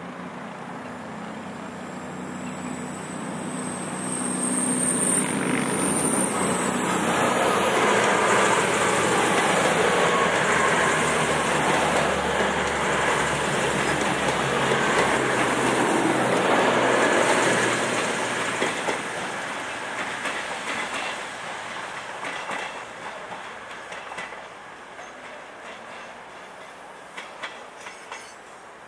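Voyager-type diesel multiple unit passing close by. Its engine and wheel noise builds over a few seconds, stays loud for about ten seconds as the coaches go past, then fades. A thin high whine rises early in the approach, and a few sharp wheel clicks come near the end.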